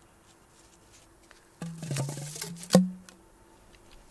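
Handling sounds of a homemade paper firework shell and a roll of tape: about one and a half seconds in, a rapid run of clicks over a brief low drone, ending in one sharp knock.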